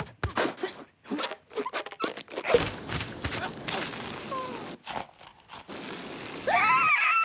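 Cartoon sound effects: a quick run of short crunching and crinkling noises, then a noisy stretch, and a short wordless vocal cry from a character near the end.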